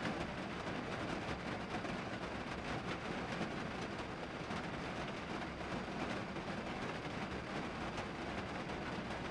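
Steady rain falling on a vehicle's roof and windows, heard from inside the cabin as a dense, even patter of countless drops.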